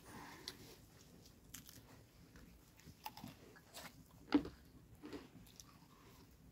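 A child biting into and chewing crusty baked bread: soft, scattered crunches and mouth sounds, with one louder crunch about four and a half seconds in.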